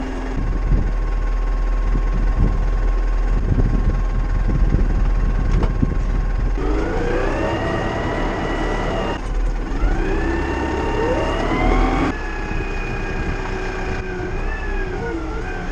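Tractor engine running with a low rumble and some knocking, then revving up twice, its pitch rising and holding at high revs.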